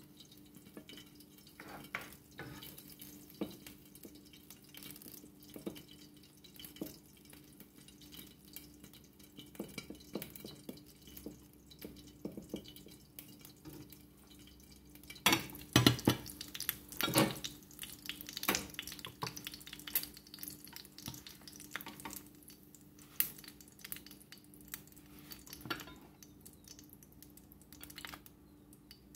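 Kitchen utensils working in a home kitchen: a metal ladle spooning thick bean sauce over tortillas on a ceramic plate, then a spatula lifting a fried egg onto it, with scattered clinks and scrapes against plate and frying pans. There are a few louder clatters about halfway through, over a faint steady hum.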